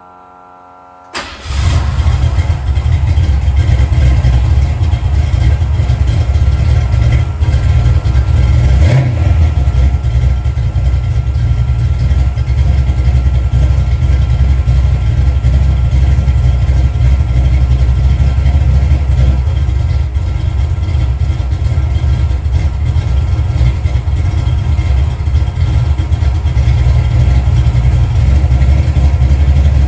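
302 cubic-inch V8 firing up about a second in and then running loud and steady, its first run after its stock pistons were ground for more valve-to-piston clearance to suit a new camshaft.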